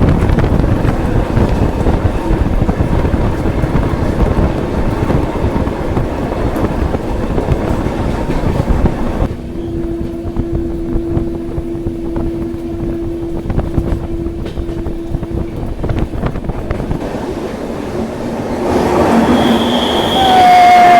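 Passenger train carriage running on the rails, heard from on board: a steady rumble of wheels and coach. In the middle a single steady tone holds for several seconds. Near the end the noise grows louder and the wheels squeal on the rails, the pitch sliding downward.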